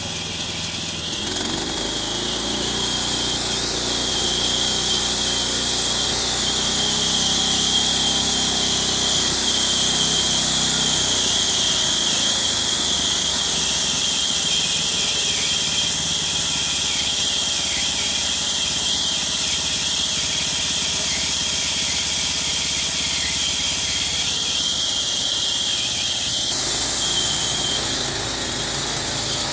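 Powered wood saw running through wood, a steady high-pitched whine over a hiss. It grows louder over the first few seconds and eases slightly near the end.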